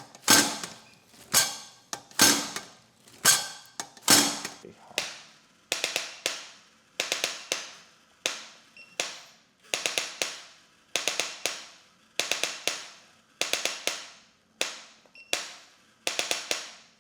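A regular run of sharp taps, each with a short ringing tail. They come singly about once a second, then from about six seconds in in quick groups of three or four, about once a second.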